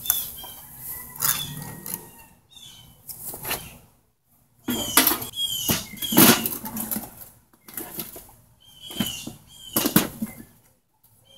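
Petrobond moulding sand being broken apart and dumped from a wooden flask into a galvanized steel tub by gloved hands: scraping, crumbling and sudden knocks, the loudest about five, six and ten seconds in. A bird chirps briefly and repeatedly through it.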